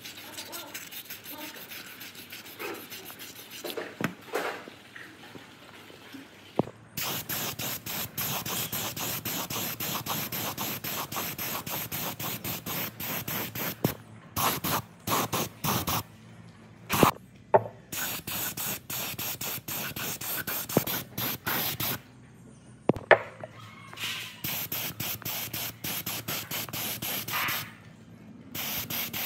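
Rapid back-and-forth rubbing strokes, as in hand sanding or scrubbing a part. They go in runs broken by short pauses, with a few sharp clicks.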